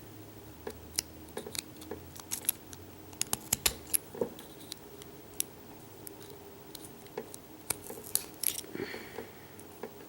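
Small metal tools clicking and scraping against a Euro cylinder lock while working a circlip off it: irregular sharp metallic ticks, several a second.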